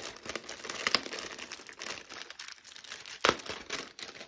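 Crinkly packaging rustling and crackling as items are pulled out of a freshly opened pack, with one sharper crackle about three seconds in.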